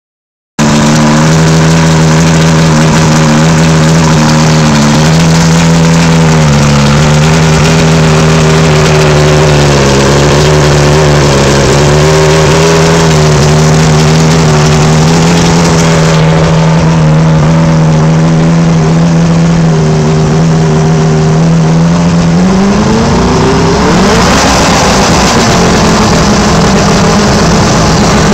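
1984 Evinrude 90 hp V4 two-stroke outboard, freshly rebuilt with new pistons and piston bearings, running loud and steady out of water on a flushing hose. Its note dips briefly twice early on, then it is revved up about three quarters of the way through.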